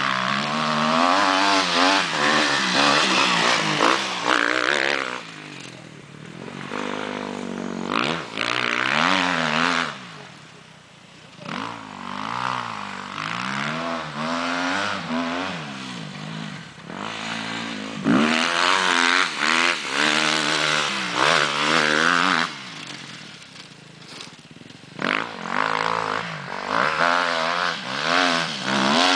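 Husqvarna TXC 250 dirt bike engine revving hard as it is ridden around a motocross track, its pitch climbing and dropping again and again through gear changes. It grows louder and fainter as the bike comes nearer and moves away.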